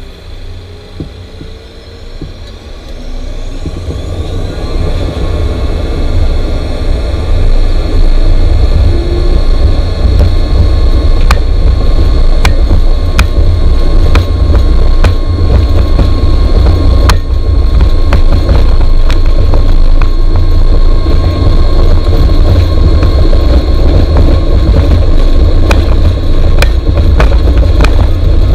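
Four turbofan engines of an Avro RJ100 airliner spooling up to takeoff power, heard from the cockpit: rising whines and a climbing roar over the first several seconds, then a steady loud roar with deep rumble. Sharp knocks come at irregular intervals once it is at full power.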